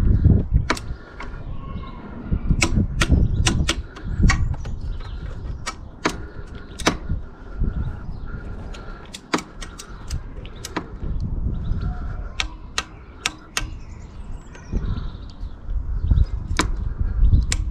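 Torque wrench clicking and ratcheting in short irregular runs as crash-bar bolts are torqued to 10 newton metres, over a low rumble.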